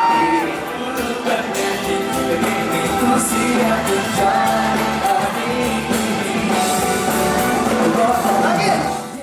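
A song with a sung melody over instruments, fading out at the very end.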